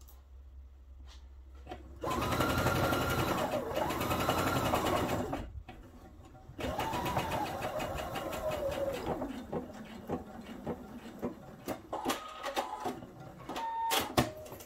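Pfaff expression 3.5 computerised sewing machine stitching a topstitch. The motor starts about two seconds in, speeds up and slows down, stops briefly, and runs again. It then goes on in short slow bursts with clicks near the end.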